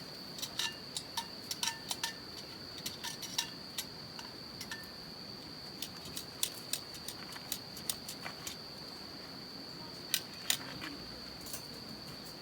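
Light clinks and taps of metal cooking utensils and cookware, some ringing briefly, in a quick irregular series that thins out in the middle and returns as a couple of sharper clinks a little past halfway. A steady high-pitched insect drone runs underneath.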